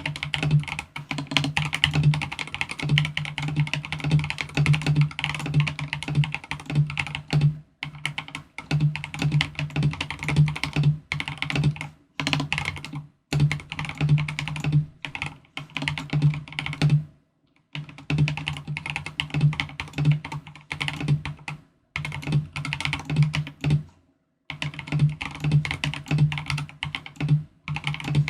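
Typing on a custom 75% mechanical keyboard (Next Time 75 board) with unlubed Akko CS Silver linear switches: fast, continuous keystroke clacks in runs, broken by several short pauses.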